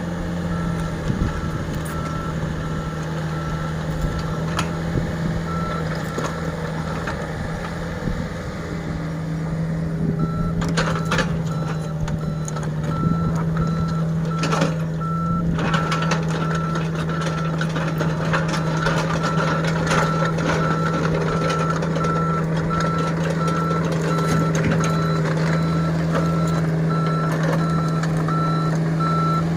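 A reversing alarm on heavy machinery beeping steadily over a diesel engine running. The beeping stops for a moment twice in the first ten seconds, then carries on without break, and a few sharp knocks and clatters come in the middle.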